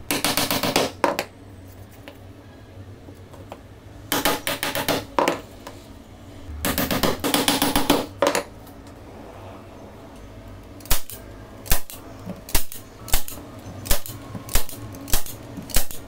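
Claw hammer driving small nails into wooden strips. Three bursts of rapid light taps in the first eight seconds, then single sharp strikes a little under two a second through the last five seconds.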